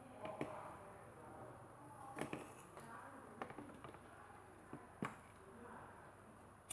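A few scattered sharp clicks and taps over a faint steady high hiss.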